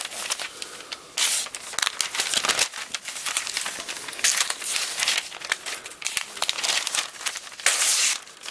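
Kershaw Intellect folding knife's plain-edge drop-point steel blade slicing through a sheet of glossy catalog paper in a cut test, with the paper crinkling in the hand. A run of short, scratchy cutting strokes, the loudest about a second in and near the end.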